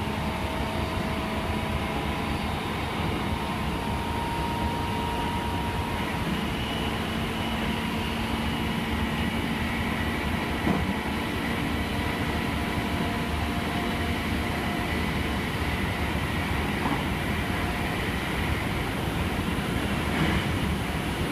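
Meitetsu 5000 series electric train heard from inside the passenger car at high speed. The traction motors whine steadily over the rolling noise of wheels on rail, with a single knock about halfway through.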